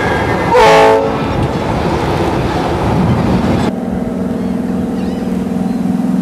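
Churning, rushing water. About half a second in, a short, loud horn-like tone falls in pitch. The rushing stops suddenly at about three and a half seconds and gives way to a steady low hum.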